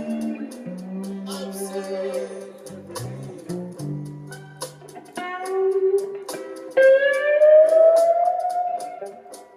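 Bottleneck slide guitar playing a blues lick over held low notes and a steady percussive tick, ending with a long, loud upward slide near the end.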